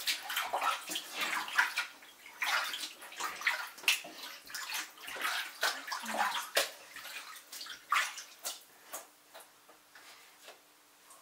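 Hands swishing and squeezing soaked knit fabric in water in a stainless steel sink: irregular sloshing and splashing that dies down over the last few seconds.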